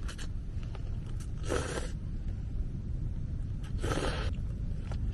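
Eating from a foil self-heating meal pouch with a plastic spoon: two short noisy bursts, about a second and a half in and again about four seconds in, over a steady low rumble.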